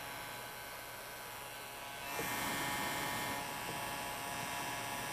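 Handheld electric heat gun running with a steady fan hum and whine. It gets louder for about a second and a half from about two seconds in.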